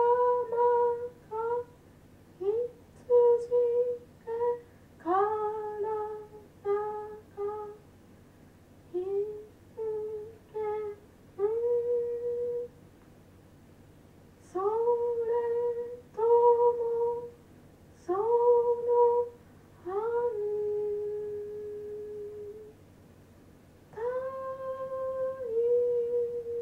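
A single voice singing wordless notes in a slow, halting line, each note sliding up from below into its pitch, with short gaps between them. In the second half a couple of notes are held for about two seconds each.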